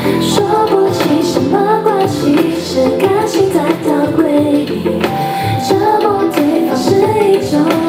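A woman singing live into a handheld microphone over backing music.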